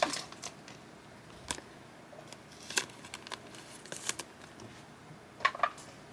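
Trading cards being handled on a table: a handful of light, short clicks and taps, spaced irregularly, a pair about four seconds in and another about five and a half seconds in.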